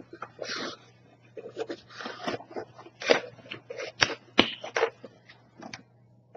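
Plastic snack packaging being handled: irregular crinkles and taps of wrappers, over a faint steady low hum.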